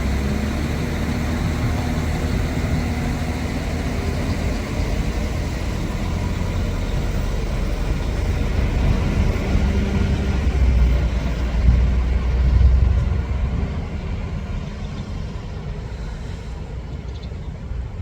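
Diesel train engine running with a low steady throb that swells louder about two-thirds of the way through, then eases off.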